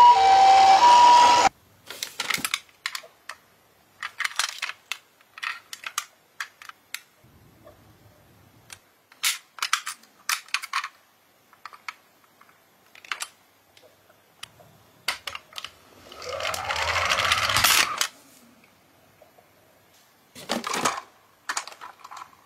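A toy ambulance's electronic two-tone siren, alternating high and low, cuts off about a second and a half in. After that come scattered light clicks and clacks of plastic toy cars being handled in a cardboard box, with a louder scraping, rising whirr lasting about two seconds a little past halfway.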